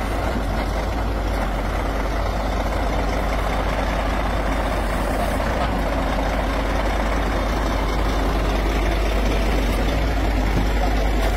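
Heavy truck engine idling steadily, a constant low drone with no change in pitch.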